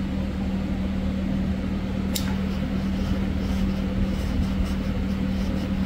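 A butane torch lighter clicks once as it is sparked, then its small flame hisses faintly with light crackle while it heats heat-shrink tubing over a spliced wire. A steady low hum runs underneath.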